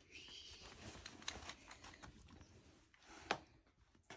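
Staffordshire bull terrier quietly chewing and mouthing a plush toy: faint soft clicks and rustling, with one sharper click about three seconds in.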